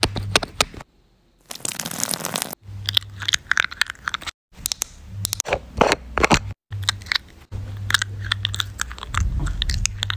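Close-miked skincare-product handling sounds: quick fingernail taps and clicks and crunchy, crinkly scratching on a serum bottle and a plastic cream jar. The sounds come in short snippets broken by several abrupt cuts to silence, with a hissy, squishy stretch of a second or so near the start.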